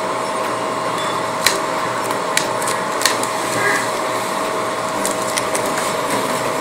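Clear plastic film on a handheld remote crinkling as it is turned in the hands, with a few short crackles. Under it runs a steady hum with a faint held tone.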